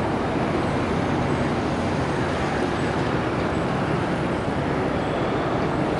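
Steady low rumble of the car ferry Kriti I's diesel engines as the ship moves past, under a constant noisy hiss.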